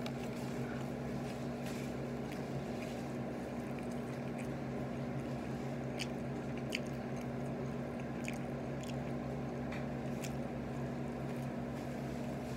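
Steady low electrical hum with a few faint, scattered soft clicks.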